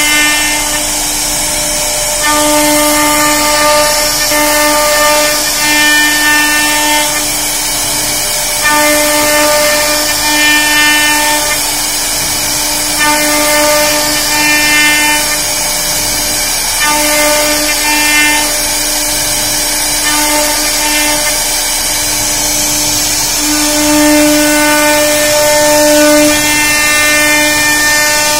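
CNC router spindle running at speed, its bit carving grooves and recesses into a solid wooden door panel. A steady high hiss runs throughout, with a pitched hum that sets in and drops away every few seconds as the cutter works through its passes.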